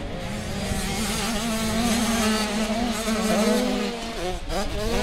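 Motocross bike engines racing on a track, a high buzzing note held fairly steady, then revving up and down in quick swings near the end as the throttle is worked.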